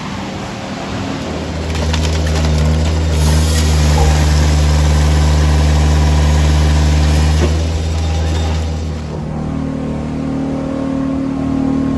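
Firewood processor's engine running steadily, a loud even drone at constant pitch. About nine seconds in it gives way to a quieter steady hum of a different pitch.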